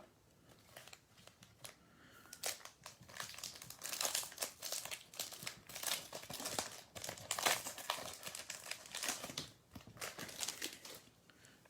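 Crinkling and tearing of a trading-card pack wrapper as a pack of baseball cards is ripped open, in a quiet room. Irregular bursts of crackle that start a couple of seconds in and stop shortly before the end.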